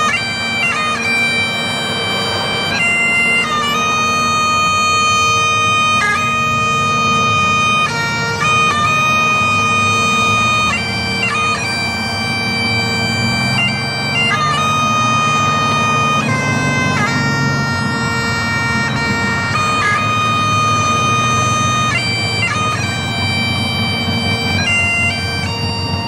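Bagpipe playing a slow tune over its steady drones, the melody notes held for a second or more and separated by quick grace notes.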